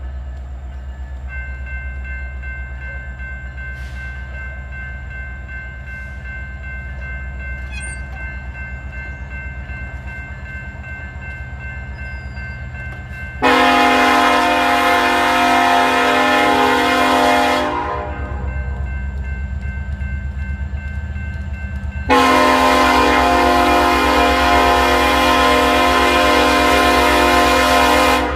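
Union Pacific SD70AH locomotive's air horn sounding two long blasts, the first about halfway through and the second near the end: the opening of the long-long-short-long grade-crossing signal. Before and between the blasts, a crossing warning bell rings over the low rumble of the approaching train.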